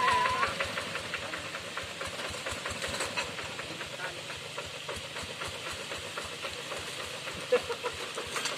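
Rice-field tractor engine running steadily, with quick regular firing knocks over a hissing noise.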